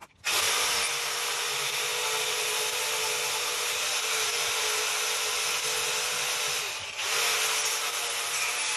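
Angle grinder running steadily with its disc working against pallet wood, a dense abrasive noise over a constant motor whine. It starts abruptly just after the beginning and dips briefly about seven seconds in.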